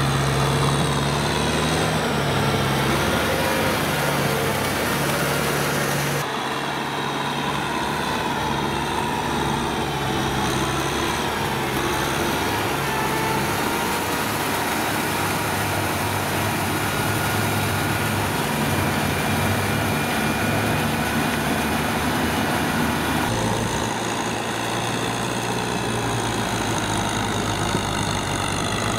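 Tractor diesel engine running steadily as it pulls through deep paddy mud, the engine note changing abruptly about 6 seconds in and again near the end.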